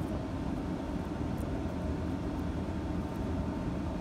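Steady low rumbling background noise with no distinct knocks or clicks.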